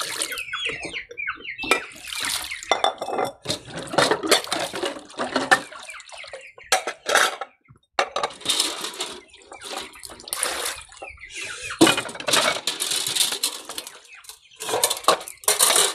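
Water splashing and sloshing in a bucket with dishes and utensils clinking, in irregular bursts, as pots and bowls are washed by hand.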